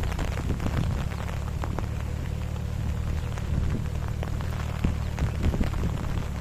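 Irregular water splashing and dripping, many small pattering hits, over a steady low hum.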